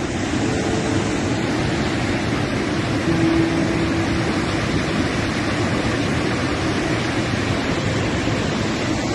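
A volcanic mudflow (lahar), a fast torrent of grey ash-laden water and debris, rushing through a village with a loud, unbroken rushing sound.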